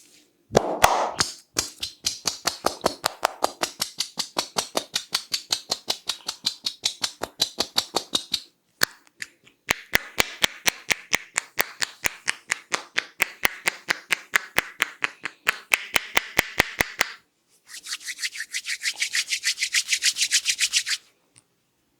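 Head massage: rapid rhythmic tapping on the head, about five strikes a second, with a scratchy rubbing of hair between strikes, in three runs broken by short pauses.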